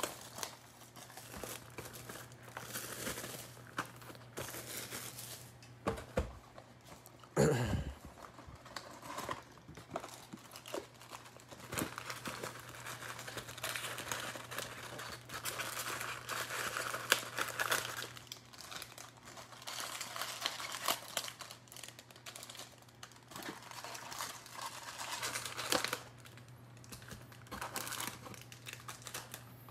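Plastic shrink wrap crinkling and tearing as it is peeled off a cardboard trading-card hobby box, then the box being opened and foil card packs rustling as they are handled and pulled out. One louder handling noise comes about seven seconds in, over a faint steady hum.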